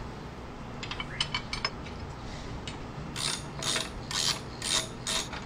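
Hand ratchet clicking in short strokes as screws are run in: a few light clicks about a second in, then about six strokes in the second half.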